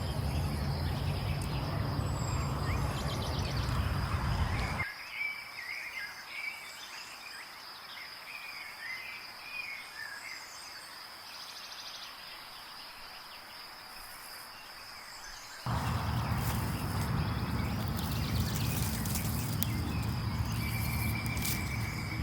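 Outdoor ambience: a steady high-pitched insect drone, with scattered bird chirps about five to ten seconds in and a short trill near the end. A low rumble covers the first few seconds and the last several, stopping and starting abruptly.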